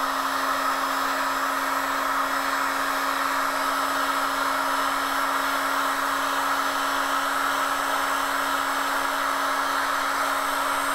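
Electric heat gun running steadily, its fan blowing a constant rush over a steady low hum, warming a tin of paste wax to soften it.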